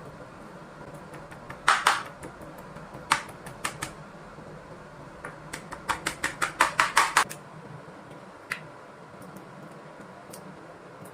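A series of sharp knocks of a hard object striking a hard surface: a few single strikes, then a quick run of about eight in a second and a half, over a steady low background hum.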